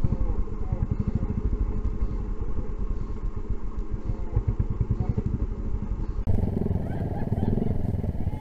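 Off-road motorcycle engines running at low revs, a steady rapid pulsing; about six seconds in it cuts to louder engine sound as bikes ride.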